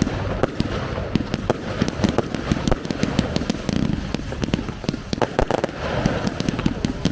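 Fireworks display going off in a dense barrage: many sharp bangs and crackles a second over a continuous rumble.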